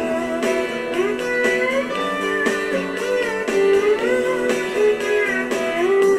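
Instrumental break of a song: a guitar plays a lead line with notes sliding and bending up and down over chords and a steady beat.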